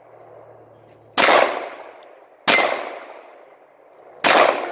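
Three handgun shots, a second and a half or so apart, each followed by a long fading echo; after the second shot a short metallic ring from a steel target plate being hit.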